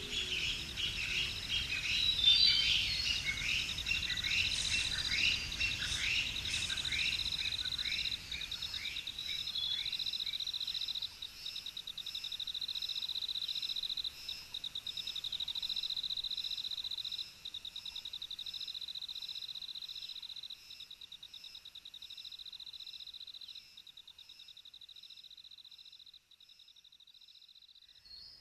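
Outdoor nature sound: a steady, high, finely pulsing insect trill like a cricket's, with birds chirping over it in the first third. The whole sound fades down step by step towards the end.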